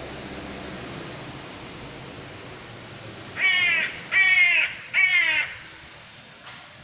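A crow cawing three loud, harsh caws in quick succession, about half a second each, over a steady rushing background noise.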